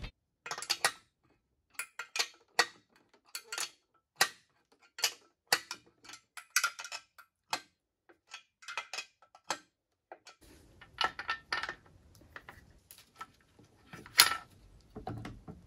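Irregular sharp metallic clicks and clinks of a hand tool working the bolts that join the upper and lower units of a Mercruiser outdrive, a couple a second, with the loudest clink about fourteen seconds in.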